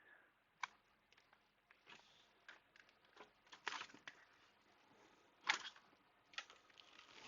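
Faint, scattered clicks and short scrapes of small laptop parts being handled, with the loudest click about five and a half seconds in.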